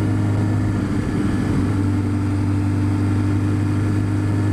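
2004 Kawasaki Concours 1000's inline-four engine running steadily at cruising speed, its note wavering briefly about a second in.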